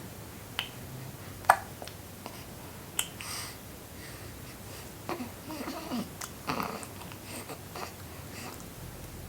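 Four-week-old baby boy breastfeeding: sharp sucking clicks and wet gurgling mouth noises. A few isolated clicks come first, the loudest about a second and a half in, then a busier run of gurgles about five seconds in.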